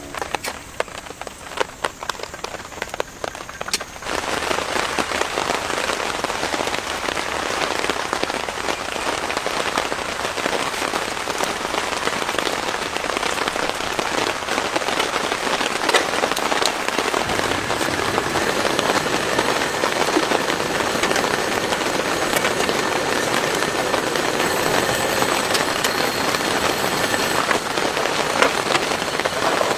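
Heavy rain with individual drops striking close by. It starts as scattered drops and about four seconds in turns suddenly much denser and louder, a steady downpour for the rest.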